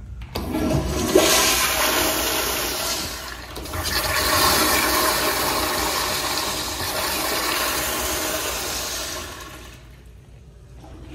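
Wall-hung commercial toilet flushing through its manual flushometer valve: a loud rush of water starts about a third of a second in, dips briefly about three and a half seconds in, then runs on and tapers off near the end.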